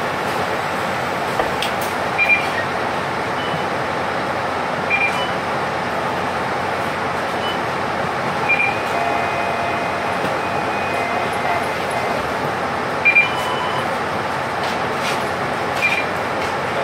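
City bus idling at a stop, a steady engine and air-conditioning hum, with about five short electronic beeps spread through it as boarding passengers tap their fare cards on the reader.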